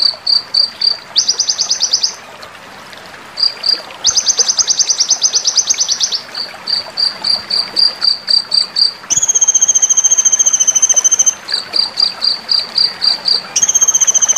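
Van Hasselt's sunbird (kolibri ninja, 'konin') singing: sharp high chips about four a second, broken by rapid stuttering trills, and a long steady high note held for about two seconds halfway through.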